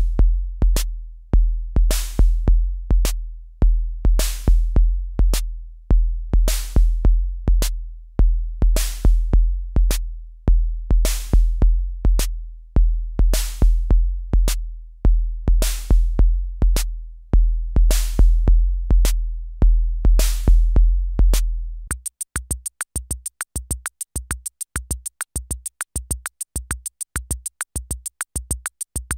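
Roland TR-6S drum machine playing a programmed pattern: deep, long-ringing low drum hits under sparse clicks, with a noisy hit about every two seconds. About three-quarters of the way in, the pattern changes abruptly to short low thumps, about two a second, under fast, bright hi-hat-like ticks.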